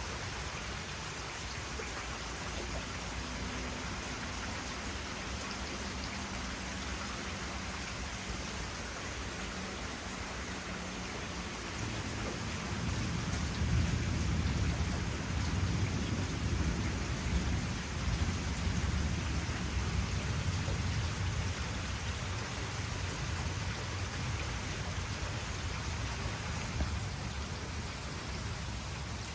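Heavy rain falling steadily. About twelve seconds in, a long low rumble of thunder builds, rolls on for over ten seconds, then fades.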